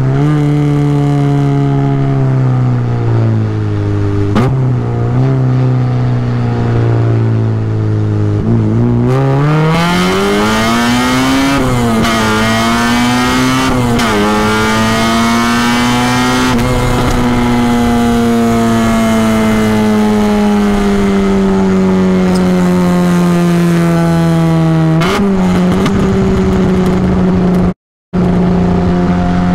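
Honda K24 inline-four engine swapped into a Mazda Miata, running hard through a road tunnel. Its revs climb steeply for a few seconds about a third of the way in, then its pitch sinks slowly for about ten seconds before jumping up again. The sound cuts out for a moment near the end.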